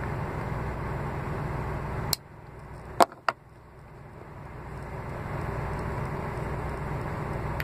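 Steady low hum of an idling vehicle engine heard inside a truck cab, dropping away abruptly about two seconds in and slowly building back up. About three seconds in come two sharp clicks, a third of a second apart.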